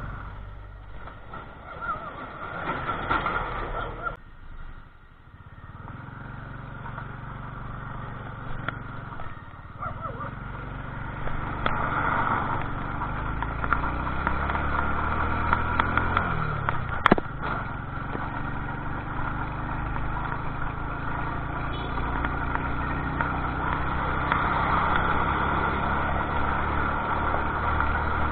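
Motorcycle engine running under way, with steady riding noise, growing louder over the first half as the bike picks up speed. A single sharp click sounds about two-thirds of the way through.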